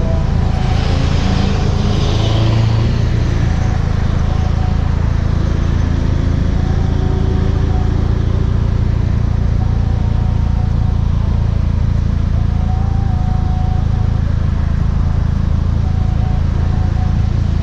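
Volkswagen Mk6 GTI's turbocharged 2.0-litre four-cylinder running through a Beluga aftermarket exhaust: a steady, loud, low exhaust note, with a brief rush of higher-pitched noise about a second in.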